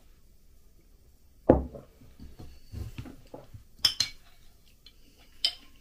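A ceramic mug set down on a table with a thump, then a metal spoon stirring thick peanut paste in a glass jar, clinking sharply against the glass twice.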